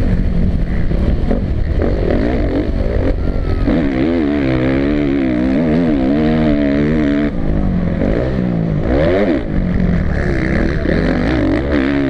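Onboard sound of a Suzuki motocross bike's single-cylinder four-stroke engine at racing pace, revving hard and easing off again and again as it is shifted and throttled through the bumps and corners.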